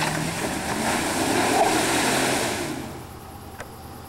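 Chevrolet Avalanche pickup revving hard in a mud pit, its spinning tyres throwing a rushing spray of mud. The noise drops off sharply about three seconds in as the truck bogs down and gets stuck.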